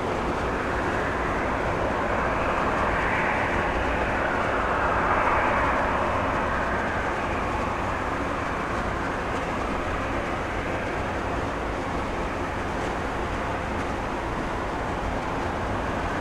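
Jet engine noise from a Boeing 747-8's four GEnx turbofans: a steady rush that swells a few seconds in, then eases back to an even level.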